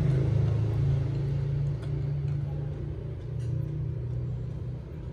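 A steady low mechanical hum, like a running engine or motor, easing slightly in level toward the end.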